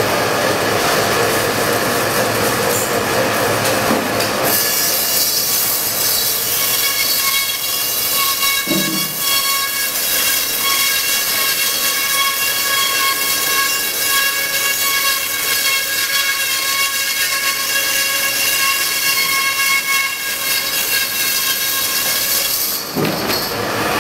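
Band saw cutting lengthwise through a whole frozen tuna. A steady high-pitched screech of several tones sets in about four seconds in and holds until shortly before the end, over the saw's running hiss.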